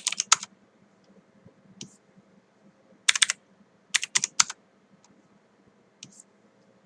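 Computer keyboard being typed on in short bursts of a few quick keystrokes, with pauses between the bursts and a single tap near the end.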